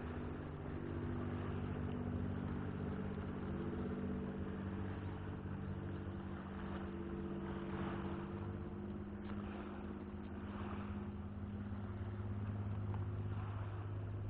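An engine running steadily with a low hum, its pitch shifting slightly about two-thirds of the way through.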